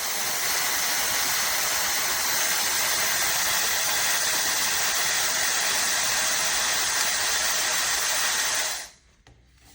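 A 1400 W brushless-motor ionic hair dryer running at full blow: a steady rush of air with a faint high whine over it. It cuts off sharply near the end.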